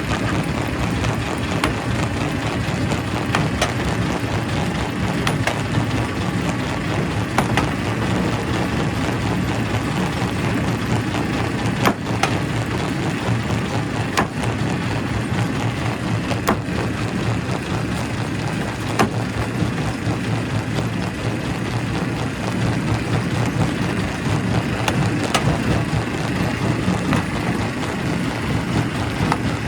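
Quarry primary rock crusher running steadily, with irregular sharp cracks as rocks break in it.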